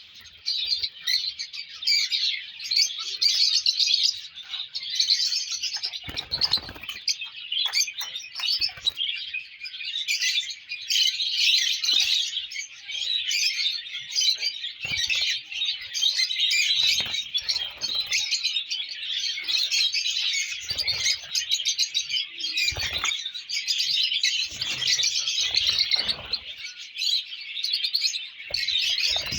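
Lovebirds chirping and chattering without pause, a dense, high-pitched twittering. A few brief thumps or rustles sound now and then.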